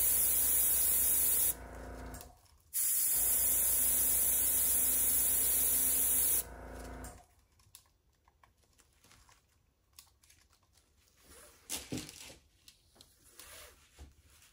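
Air blower with a small nozzle hissing in two long blasts, blowing wet acrylic paint outward to pull the petal lines of a flower. The first blast cuts off about a second and a half in and the second stops about six seconds in. A few faint taps and clicks follow.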